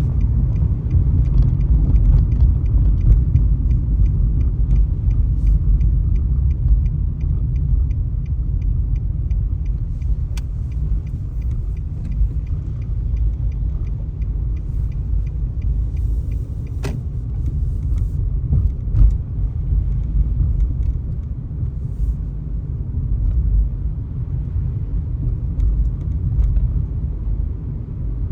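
Steady low rumble of a car's road and engine noise heard inside the cabin while driving. A run of faint, evenly spaced ticks lasts several seconds in the first half, and there is a single sharp click later on.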